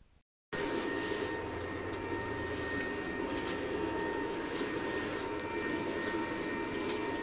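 Ryobi battery-powered backpack leaf blower running steadily: a constant rush of air with a thin, high motor whine over it, coming in about half a second in.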